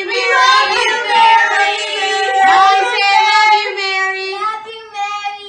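Children singing together, holding long, drawn-out notes; the singing fades out at the very end.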